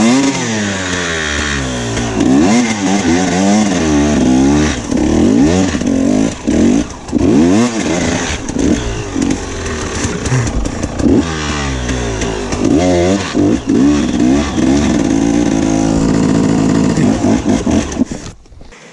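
Enduro dirt bike engine revving up and falling back over and over as the throttle is worked hard on a muddy climb. The sound cuts off suddenly near the end.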